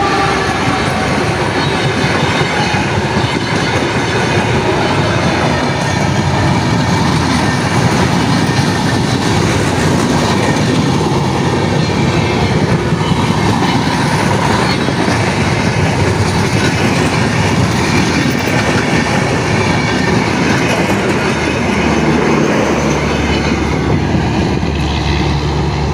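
Train running on the rails, a loud, steady rumble and rattle of wheels and carriages.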